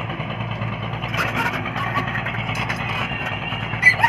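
Engine of road-construction machinery running steadily, with scattered clinks and scrapes from about a second in and a short, sharp, loud sound near the end.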